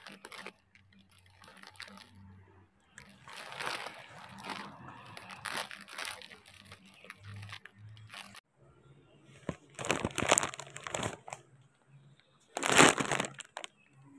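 Rustling and crunching of dry leaves and foliage being handled, in uneven bursts, the loudest a short sharp crunch near the end.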